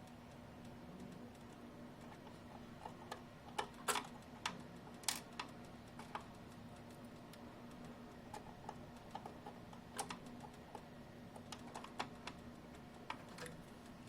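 Faint, irregular small metallic clicks and taps of a screwdriver turning the tiny M.2 retaining screw that holds an NVMe SSD down on a desktop motherboard, over a faint steady hum.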